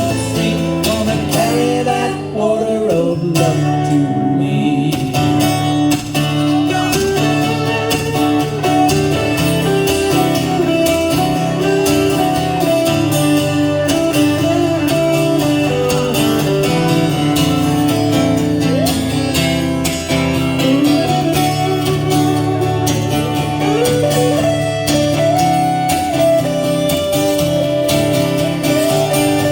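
Live band music led by guitars: chords with a lead line that slides and bends between held notes.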